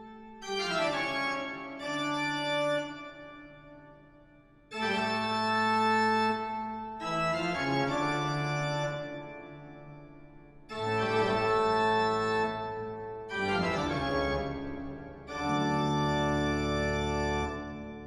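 Background music of organ chords: a series of long held chords, each starting loud and slowly fading before the next one comes in.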